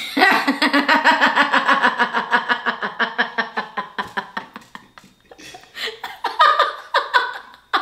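A woman laughing hard. A long run of quick, evenly spaced laugh pulses, about five a second, goes on for some four seconds, then after a short pause come several shorter bursts of laughter.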